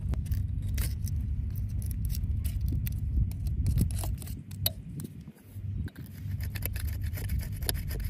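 A metal oyster pick scraping and clicking against oyster shells on a rock as oysters are pried off, with sharp, irregular clicks throughout. A steady low rumble runs underneath and is louder than the clicks.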